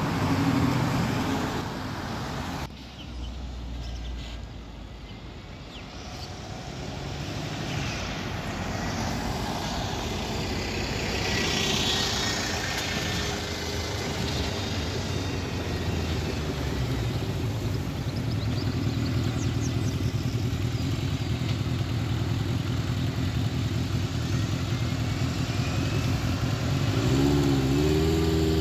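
Road traffic, then a Stagecoach double-decker bus's engine running as it moves off and turns; a couple of seconds before the end the engine note rises as it accelerates.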